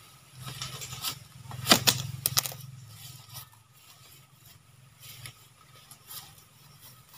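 A heavy wooden log tipped over and dropped onto grassy ground, landing with a quick cluster of sharp knocks about two seconds in. A low steady hum runs underneath.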